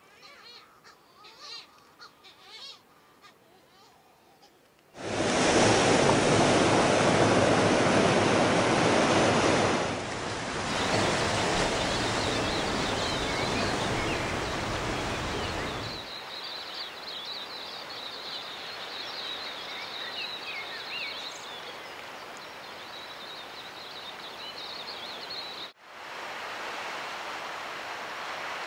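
Faint wavering calls from a titi (sooty shearwater), then surf breaking loudly on a rocky shore for about ten seconds. The surf settles into a quieter steady wash with many quick high chirping bird calls over it, and after a brief break only a steady hiss remains.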